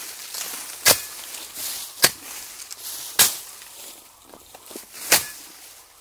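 A long-handled hand tool chopping into soil and weeds: four sharp strikes about a second apart, with a longer gap before the last.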